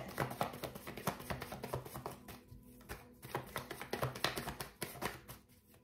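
Irregular light clicks and taps of tarot cards being handled on a desk, over faint background music.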